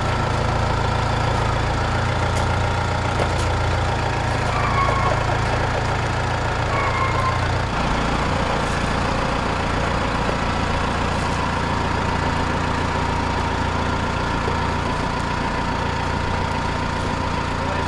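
Compact utility tractor's engine running steadily at low speed, working under the load of a small metal building carried on its front pallet forks and rear three-point hitch.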